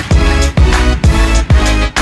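Music with a heavy, steady drum beat at about two beats a second over a bass line.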